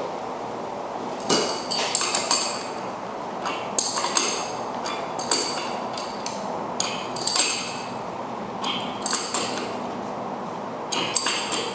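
Short, irregular metallic clinks and scrapes of a wrench turning a new pressure switch onto an air compressor's threaded fitting.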